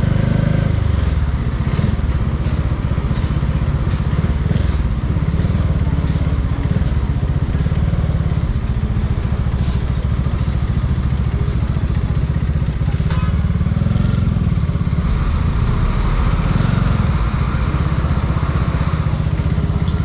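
Bajaj Dominar 400's single-cylinder engine running under way, its pitch dropping about a second in and rising and falling again with the throttle.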